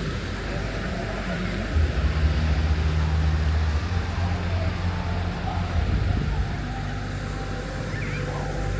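A motor engine running with a low, steady hum, louder for a few seconds from about two seconds in, with faint voices in the background.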